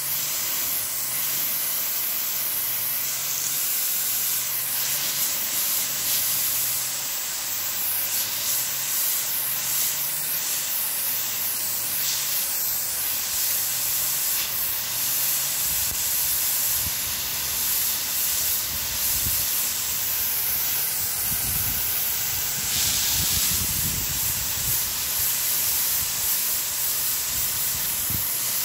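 Hose spray nozzle throwing a fine mist of water over young plants: a steady hiss.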